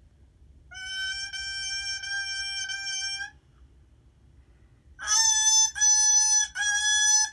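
A bassoon reed played on its own, without the instrument: one steady held note for about two and a half seconds. After a pause comes a louder, slightly higher note, tongued into a run of short separate notes.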